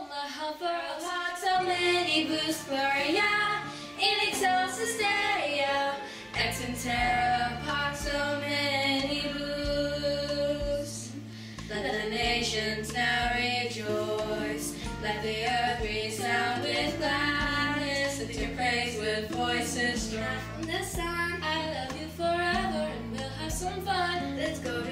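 Two young girls singing a song together over an instrumental accompaniment whose bass line comes in about a second and a half in.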